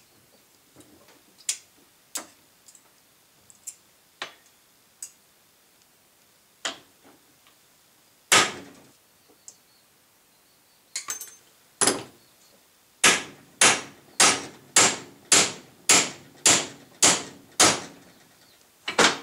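Hammer blows on a U-joint yoke, knocking a bearing cup out of it without a press. A few light taps, then one hard blow, then a run of about ten hard strikes at about two a second, and one more near the end.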